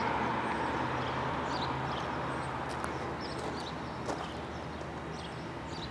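Outdoor ambience of birds chirping in short high calls over a steady low hum and faint background noise.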